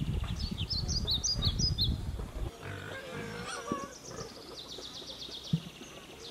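Small birds chirping in quick repeated bursts of short high notes, with a low rumble under the first couple of seconds and a single sharp click near the end.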